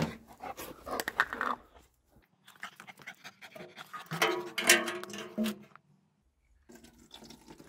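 A dog panting close to the microphone in short, uneven breaths.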